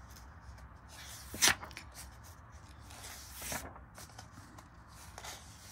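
Pages of a colouring book being turned by hand: a few short paper rustles and swishes, the sharpest about one and a half seconds in.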